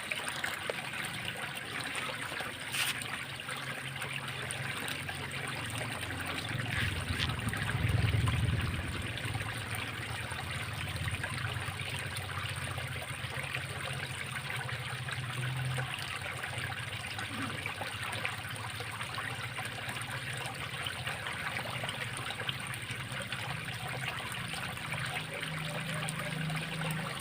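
Water trickling steadily in a small drainage ditch, with a low rumble that swells briefly about eight seconds in.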